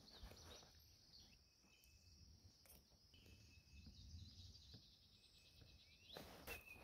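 Near silence: faint outdoor ambience with a few faint chirps and light ticks.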